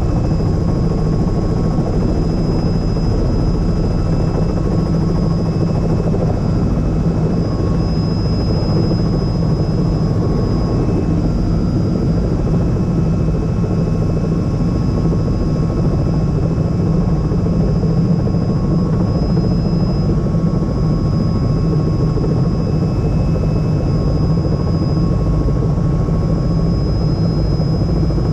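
Helicopter engine and rotor running steadily on the ground, heard from inside the cabin: an even, loud rumble with a thin high whine over it.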